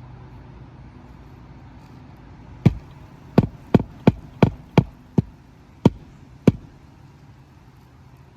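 About nine sharp hammer strikes in quick, uneven succession, driving roofing nails to fasten an asphalt shingle back down. Each strike rings briefly.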